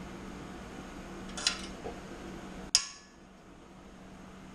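Metal clinks from a hook tool and exhaust spring being worked at the exhaust joint of a UL Power 350iS engine. There is a light clink about a second and a half in, then a sharp metallic snap just before three seconds in, the loudest sound.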